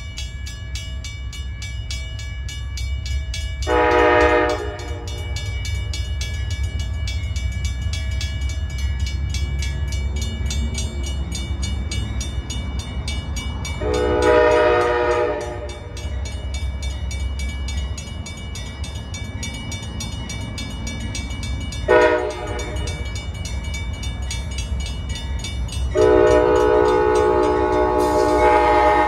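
Amtrak locomotive's air horn sounding the grade-crossing signal as the train approaches: a long blast about four seconds in, another long one around fourteen seconds, a short one around twenty-two seconds, then a long one from about twenty-six seconds on. A steady low rumble runs underneath.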